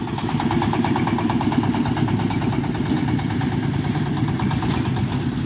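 Dongfeng 32 hp diesel engine of a steel-wheeled peat-land carrier running steadily with an even, rapid pulse as the vehicle drives off.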